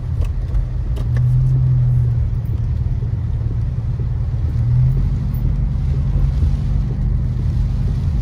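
Inside a car driving on a wet road in steady rain: the engine and tyres make a steady low drone, with rain on the car and windshield as a hiss and a few faint ticks.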